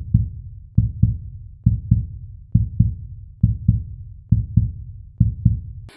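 Heartbeat sound: steady pairs of low lub-dub thumps, about 68 beats a minute.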